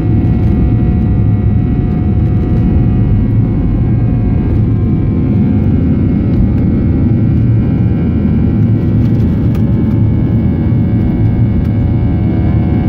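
Airliner heard from inside the cabin during the takeoff run, engines at takeoff power: a loud, steady rumble with several steady whining tones above it.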